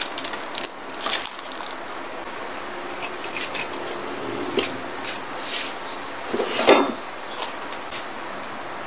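Small scattered clicks and taps as whole peppercorns drop into an aluminium pot, followed by light paper rustling and handling noises; one sharper knock about seven seconds in.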